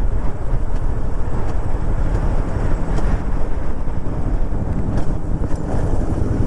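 Wind buffeting the microphone of a moving motorcycle, a steady, uneven low rumble with road and engine noise underneath.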